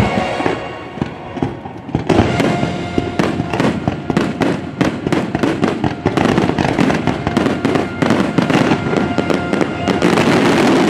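Fireworks going off in a rapid, dense barrage of bangs and crackles that starts about two seconds in, as the show music fades out.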